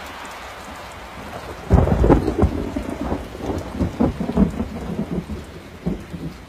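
Thunderstorm: rain hissing steadily, then a sudden thunderclap about a second and a half in, which goes on rumbling and crackling.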